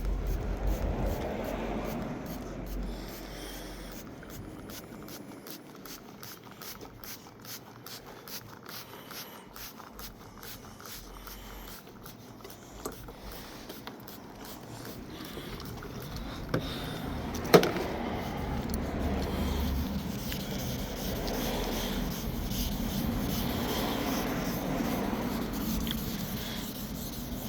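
2000-grit wet-and-dry sandpaper rubbing back and forth over a car's painted panel, wet sanding out finer scratches before polishing. A single sharp knock about two-thirds of the way through.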